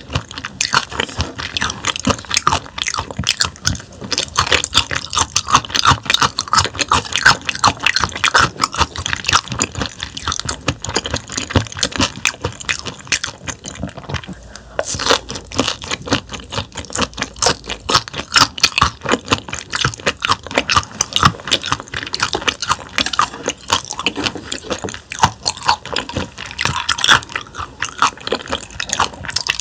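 Close-miked chewing of thin, bone-in slices of raw damselfish and lettuce: a dense run of quick crunching and crackling clicks as the tough fish bones are bitten through, with a brief lull about halfway.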